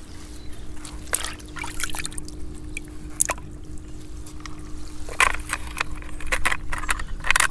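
Seawater splashing and trickling in a bucket as razor clams are dropped in, with scattered sharp clicks and scrapes.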